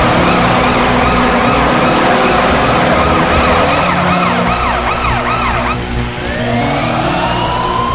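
Washington Capitals hockey goal horn sequence: a steady low horn tone with a fast, repeating up-and-down siren wail over it. About six seconds in the wail stops and a siren winds up, rising slowly in pitch.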